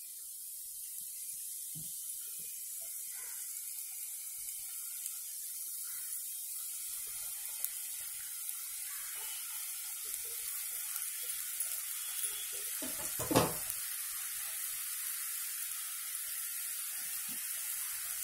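Maida dough strips deep-frying in hot oil in a steel pan: a steady sizzling hiss that grows gradually louder as more pieces go into the oil. A single sharp knock about 13 seconds in.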